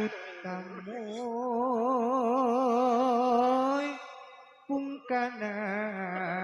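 A solo voice singing long held notes with a wide, even vibrato, with no instruments heard behind it; the phrase fades out about four seconds in and a new sung phrase starts about a second later.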